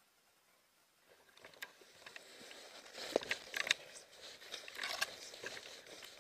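Footsteps crunching through snow with clothing rustling: faint at first, starting about a second in, then louder and denser irregular crunches from about three seconds in.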